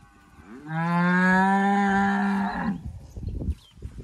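A cow mooing: one long, steady call of about two seconds, starting about half a second in.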